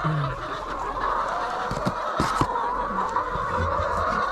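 A flock of laying hens clucking steadily and continuously, with a few short rustles and knocks from a hand searching the straw of a plastic nest box.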